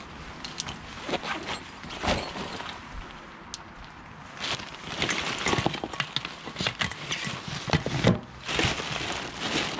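Gloved hands rummaging through plastic rubbish bags, with rustling, crinkling and irregular knocks as things are shifted. It is sparse at first and becomes a busy, continuous rustle from about halfway through.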